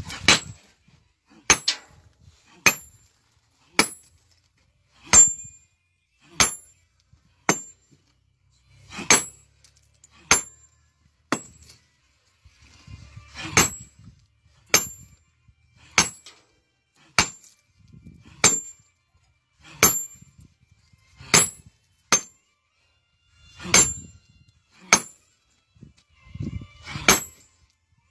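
Sledgehammer striking a stone block by hand over and over, about one blow a second with a short break midway, each blow a sharp clink with a brief high ring.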